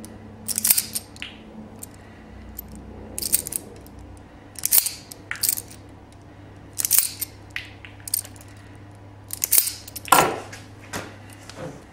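Hand wire strippers snipping and pulling insulation off the ends of 22-gauge wires, one after another: a series of sharp clicks and snips in bunches every second or two.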